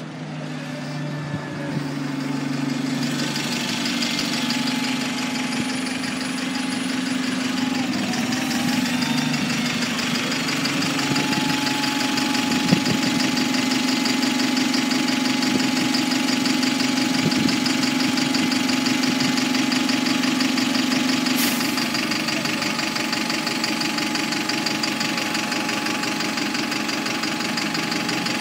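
Single-deck diesel bus engine idling steadily at a stop after pulling in. A thin steady high whine joins it about eleven seconds in.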